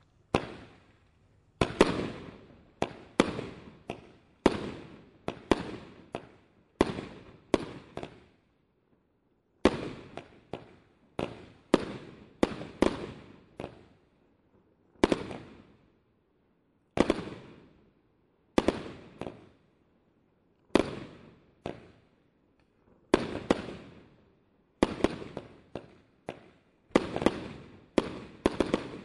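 "Sound Barrier" firework going off in a long string of sharp bangs, one or two a second at uneven spacing, each dying away within about a second.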